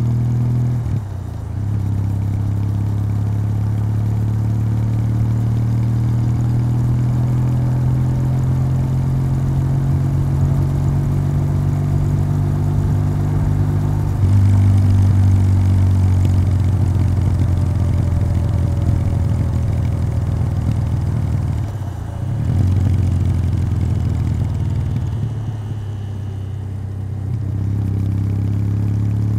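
Kawasaki W800's air-cooled 773 cc parallel-twin engine running through its stock exhaust while the bike is ridden. The engine note is steady, with a brief dip about a second in. It gets louder about halfway through, dips again later, and then runs quieter for a few seconds before picking up near the end.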